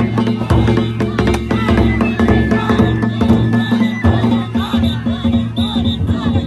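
Danjiri float's festival music (narimono) playing continuously: a taiko drum beating steadily with gongs over it.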